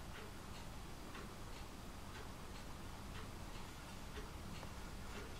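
Clock ticking steadily, about two ticks a second in an uneven tick-tock rhythm.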